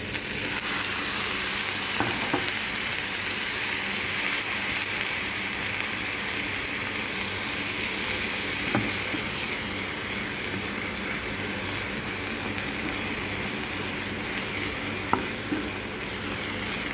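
Chicken bouillon and water sizzling steadily in a hot pan of rice and mushrooms as it is stirred with a spatula, with a few sharp knocks of the spatula against the pan.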